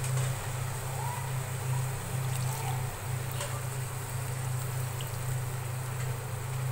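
Water just added to a hot pan of chicken and dal, hissing and trickling steadily over a steady low hum, with a few faint clicks.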